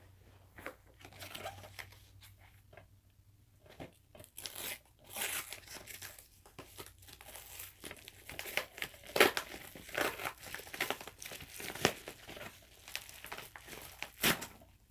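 Mail packaging being torn open and crumpled by hand: a run of irregular crinkles, rustles and rips. It starts sparse and gets busier after about four seconds, with a few sharp, loud crackles.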